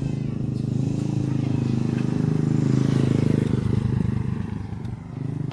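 A motor vehicle's engine running, growing louder to a peak about three seconds in and then fading.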